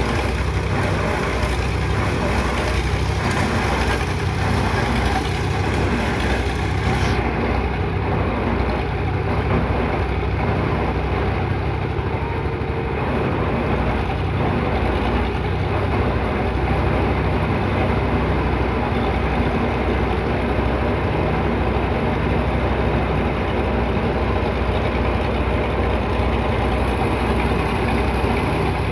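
Heavy engine of construction machinery running steadily at a constant pitch, without revving.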